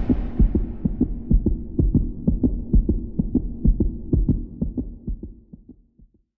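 Heartbeat sound effect: a quick, even run of low thuds over a low hum, both fading out and stopping near the end.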